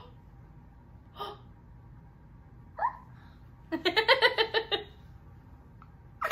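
A woman's burst of laughter, a quick run of 'ha' pulses about four seconds in, after two brief faint vocal sounds.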